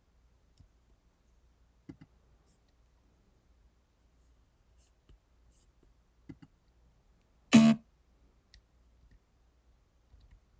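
A few soft computer-mouse clicks over quiet room tone. About two-thirds through, a single short, loud audio sample plays as a preview.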